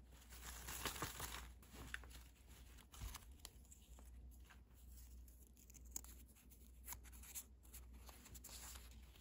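Faint crinkling and tearing of plastic snack packaging, a run of irregular crackles and rustles.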